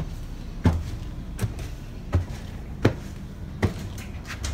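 Footsteps: a steady series of about six dull thumps, each under a second apart, as a person walks, plausibly up stairs.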